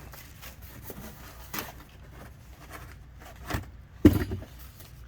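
A mailed package being handled and opened: scattered rustles and light clicks, with a louder knock about four seconds in.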